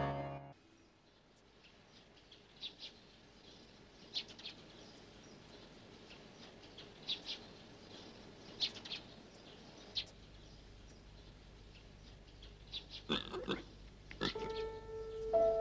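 A pig making several short, faint grunts and squeals, spaced a second or more apart, with a louder burst a little after two-thirds of the way through. Chiming music comes in near the end.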